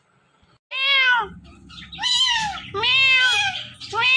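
A ringneck parrot imitating a cat: four meow-like calls, each rising then falling in pitch, the first starting nearly a second in.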